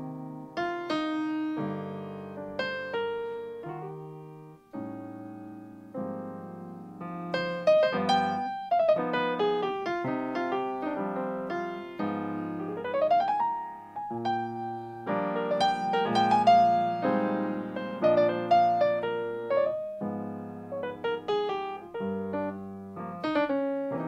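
Acoustic grand piano playing an unaccompanied jazz ballad solo: chords and melodic lines, with quick rising runs about halfway through and again near the end.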